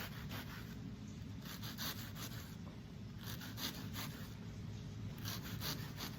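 Kitchen knife slicing an onion on a cutting board: short runs of quick cutting strokes with pauses between them, over a low steady hum.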